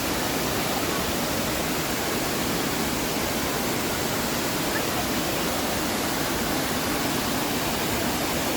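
Anna Ruby Falls, a waterfall, rushing: a steady, even roar of falling water.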